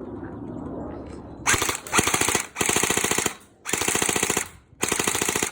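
Airsoft gun firing in short full-auto bursts: a rapid, even clatter of shots, about five bursts with brief pauses between them, starting about a second and a half in.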